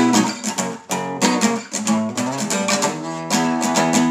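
Acoustic guitar strummed in a steady rhythm, ringing chords between sung lines of a song.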